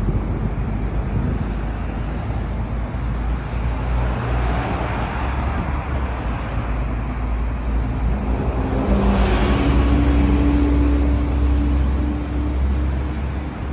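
Road traffic passing on a city street: a steady rumble of cars and buses, with one vehicle passing close by about two-thirds of the way in, its engine note swelling and then fading.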